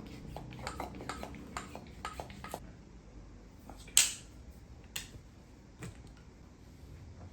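Light metal clicks and clinks from working a tire back onto a bicycle wheel rim, with one loud sharp clink about four seconds in and a couple of fainter ones after it.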